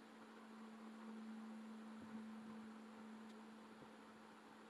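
Near silence: room tone with a faint, steady low hum.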